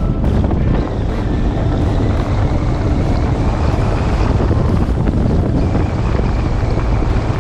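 Boat running at speed across the water, with heavy wind buffeting the microphone over steady engine and hull noise.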